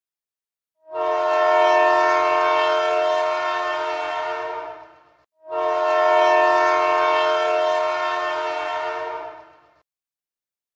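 Train horn sounding two long blasts of about four seconds each, back to back with a brief gap, several steady tones together, each blast fading a little before it cuts off.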